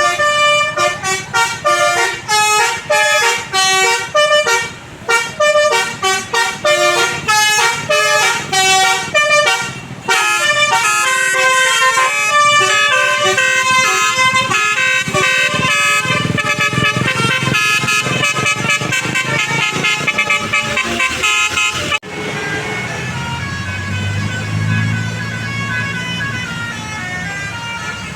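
A bus's multi-note 'telolet basuri' musical horn playing a melody. It starts in quick, short notes that step up and down, then runs on in a continuous string of notes. After a sudden break about two-thirds of the way through, lower, steadier tones follow.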